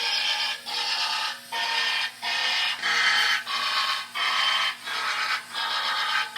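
Hand sanding of body work with a sanding block: even back-and-forth scraping strokes, about three every two seconds.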